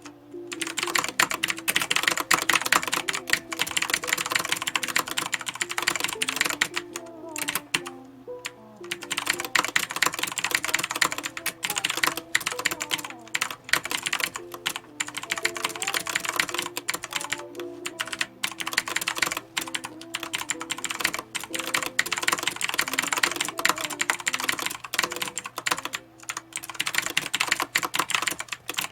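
Redragon Kumara K552 mechanical keyboard with clicky Outemu Blue switches being typed on fast and continuously, a dense patter of sharp clicks with a few brief lulls. Faint background music plays underneath.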